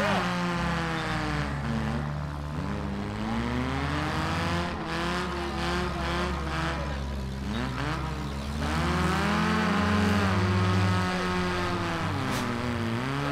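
Several stock four-cylinder demolition derby cars revving hard, their engine pitch repeatedly rising and falling, with tire spin as the heat gets under way.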